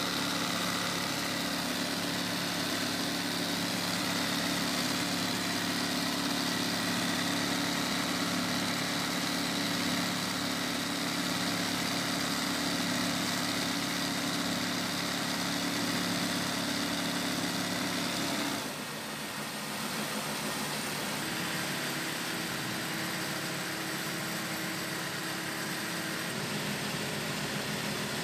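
Electric sewing machine doing embroidery, its motor running in a steady hum. About two-thirds of the way through it stops abruptly, leaving a fainter steady hum.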